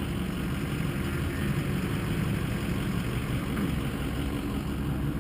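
Motorcycle engines running steadily at low revs, an even low rumble with no revving.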